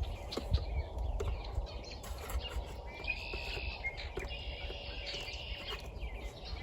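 Small birds chirping in several short phrases, over a steady low rumble, with a few faint clicks.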